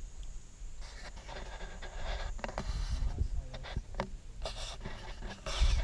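Off-road vehicle driving on a gravel dirt road: steady low rumble with tyre-on-gravel crunching and many quick rattling clicks and knocks, and one louder jolt near the end.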